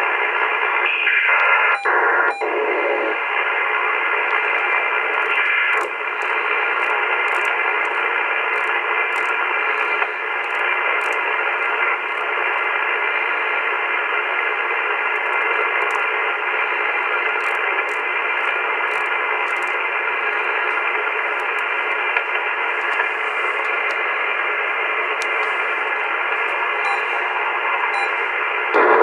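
AOR AR8600 communications receiver putting out steady shortwave static in upper sideband mode while it is tuned slowly up through about 3.36 to 3.50 MHz. The hiss is thin and narrow-band and a little louder during the first two seconds or so.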